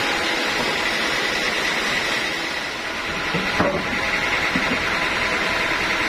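Band sawmill running steadily, its motor and blade giving a constant machine noise. A single knock sounds about three and a half seconds in.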